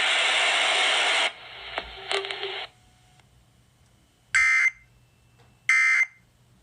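Radio broadcast hiss cuts off about a second in. After a short silence come two short, buzzy Emergency Alert System data bursts about 1.3 s apart, the end-of-message tones that close the alert.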